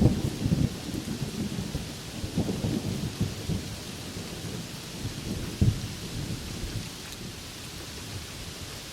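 Steady rain with thunder rumbling low, the rumble loudest at the start and dying away over the first couple of seconds. A short low thump comes about five and a half seconds in, then only the rain's hiss.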